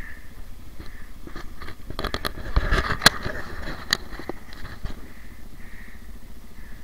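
Dirt bike engine running at low revs as the bike comes slowly closer, with a cluster of sharp clicks and knocks about two to four seconds in, the loudest about three seconds in.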